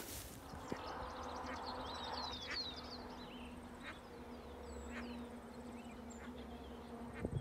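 A flying insect buzzing in one steady, low hum that stops near the end, with short high bird chirps and twitters over it.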